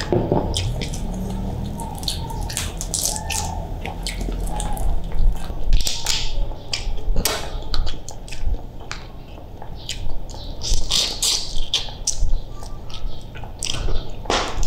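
Close-miked wet eating sounds: chewing and lip smacking, with a run of sharp clicks and crackles as a boiled shrimp's shell is peeled apart by hand.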